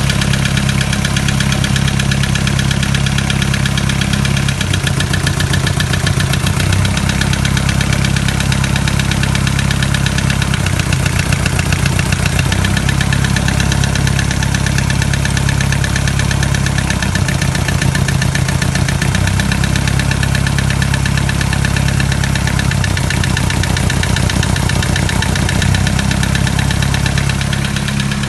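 Mitsubishi 4M40 four-cylinder turbodiesel idling steadily with a rhythmic knock from inside the engine, the sign of a fault whose cause is not yet known.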